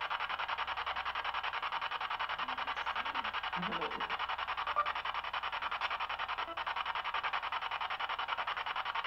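Spirit box sweeping through radio stations: a steady, rapid, even-pulsing hiss of chopped static, used to draw out voice-like answers from a presence.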